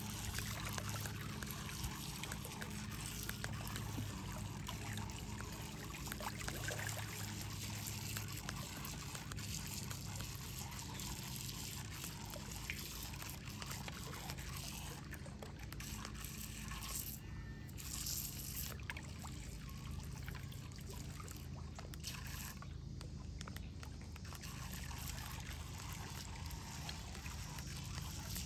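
Shallow lake water lapping and trickling among shoreline rocks, a steady gentle wash, over a faint steady low hum.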